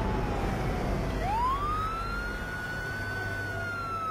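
Police car siren in a slow wail. The pitch sinks, climbs quickly about a second in, holds high, then slowly falls again, over the low rumble of a vehicle.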